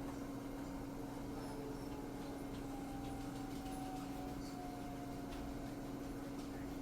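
Outdoor tornado warning siren faintly winding down, its pitch slowly falling, over a steady low hum.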